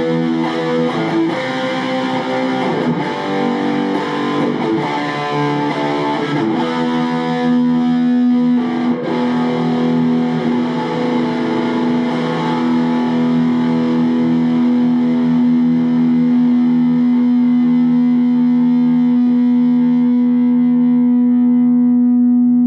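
Distorted electric guitar played through an AMT B1 JFET preamp pedal. A few seconds of riffing give way, about six seconds in, to one held chord left ringing, its brightness fading near the end.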